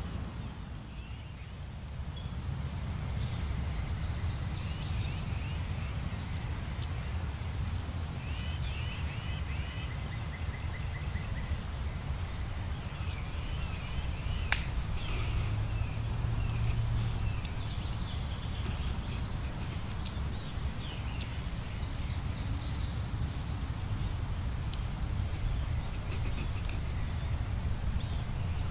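Small woodland songbirds chirping and trilling on and off, over a steady low rumble. A single sharp click sounds about halfway through.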